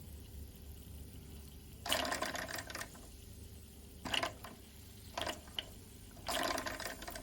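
Mamod SE1 toy steam engine's boiler spitting hot water and steam in four short bursts.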